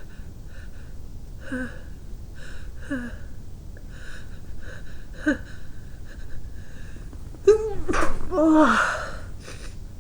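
A person's induced sneeze: three short catching gasps with falling pitch, then a loud sneeze about three quarters of the way in, with a sharp start and a falling voiced tail. The sneeze breaks out fully despite the attempt to hold it back.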